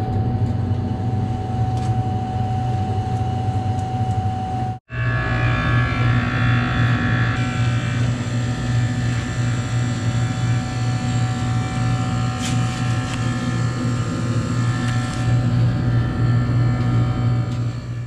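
Walk-in cooler refrigeration equipment running, fan motors among it: a loud steady machine hum with a constant whine on top. It cuts out for an instant about five seconds in.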